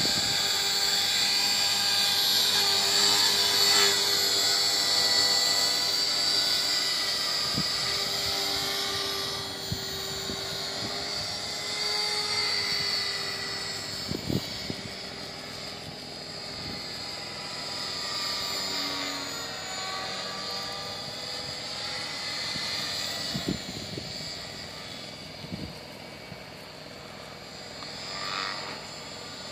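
Align T-Rex 450 electric RC helicopter in flight: the high whine of its electric motor and gears over the rotor's whir, the pitch shifting as it manoeuvres. It grows fainter as it climbs away.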